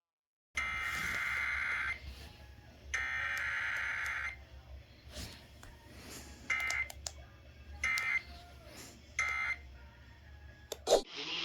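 Emergency Alert System Required Weekly Test data tones: two long bursts of the SAME header's harsh, warbling digital data about a second apart. After a quiet stretch of faint hiss come three short bursts of end-of-message data, and a click near the end.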